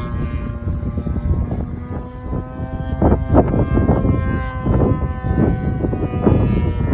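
Radio-controlled model airplane flying overhead, its motor running at a steady pitch, with irregular gusts of wind buffeting the microphone.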